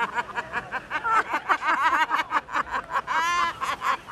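Two older women laughing hard together in quick, high-pitched bursts, with a long high squeal of laughter a little after three seconds in.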